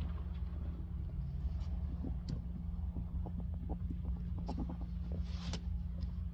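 Ferrets dooking: a quick run of soft clucking clicks in the middle, with a few single clicks before and after, over a steady low hum.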